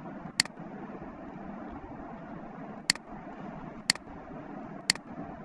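Computer mouse clicking: one sharp click shortly after the start, then three more about a second apart, over a steady background hiss.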